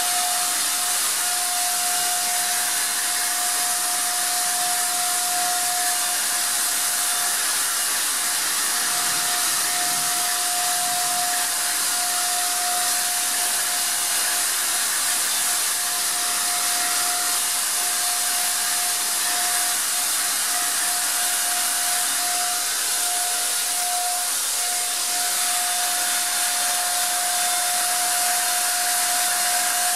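Handheld Wagner 150 electric paint sprayer running continuously as it sprays screen paint: a steady rush of air with a constant whine.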